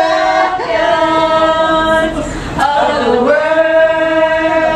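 A group of men and women singing together unaccompanied. They hold two long notes, with a short break between them about halfway through.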